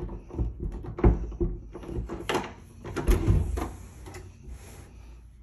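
A wooden interior door being handled and swung open: a string of knocks and thumps, the loudest about one second in and again around three seconds in, then fading.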